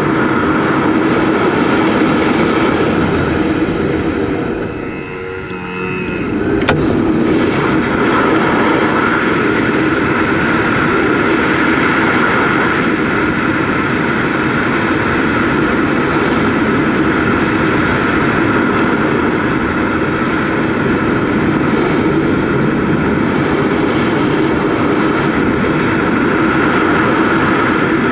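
Steady rush of airflow heard from a camera riding on a Lo100 model glider in flight, with a steady drone underneath. The sound drops briefly about five seconds in, and a single sharp click comes just under seven seconds in.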